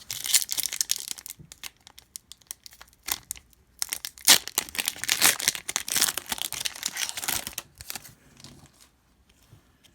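Foil wrapper of a trading card pack being torn open and crinkled by hand, in irregular bursts of crackling that die down near the end.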